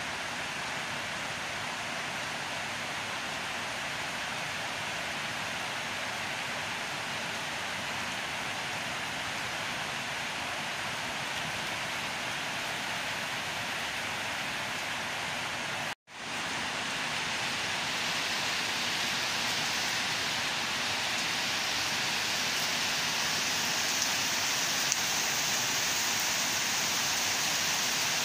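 Heavy rain falling steadily, an even hiss of a downpour. There is a brief cut-out a little past halfway, after which the rain is slightly louder and hissier.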